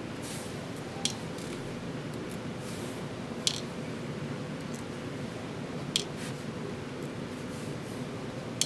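Four small sharp clicks, about two and a half seconds apart, from a small Phillips screwdriver and screws working on a Samsung Galaxy S2's back housing, over a steady faint hum.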